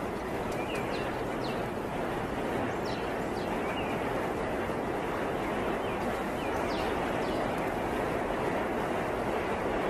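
Steady rushing water in a sea otter pool, with a few short, high chirps scattered through it.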